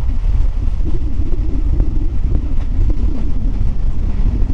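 Suburban electric local train running at speed, heard from inside the carriage: a steady low rumble of the wheels on the track, with a few faint clicks.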